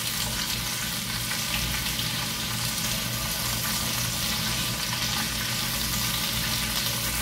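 Diced onion, green bell pepper and tomato sizzling steadily in hot oil in a nonstick frying pan, stirred with a spatula.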